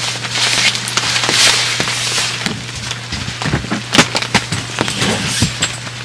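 Rain hitting the tent fly in irregular sharp ticks, heavier and hissing for the first couple of seconds, over a steady low hum. A few low thumps come in the second half.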